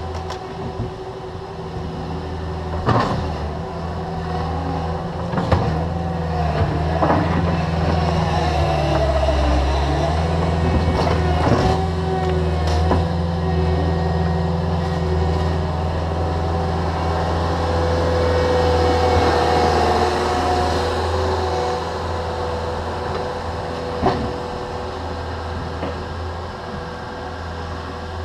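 Diesel engines of a Cat 305.5E2 mini excavator and a Cat 289D compact track loader running steadily under load, with a whining tone that rises and falls as the machines dig and scoop. Several sharp clanks of a steel bucket striking hard dirt and rock stand out over the engines.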